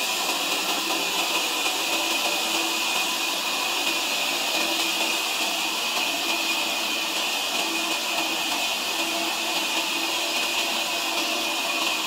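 Sawmill saw running with a steady, even hiss, strongest high in pitch.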